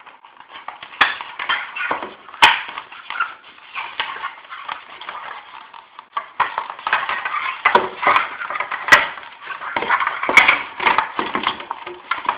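Coat-hanger wire being bent and twisted into a knot against a bicycle helmet: close, irregular scraping and rustling with four sharp clicks spread through it.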